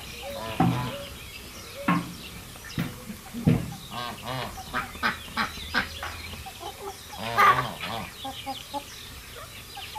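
Domestic poultry calling: a run of short calls, several a second through the middle, one louder call about seven and a half seconds in, and softer quick calls near the end.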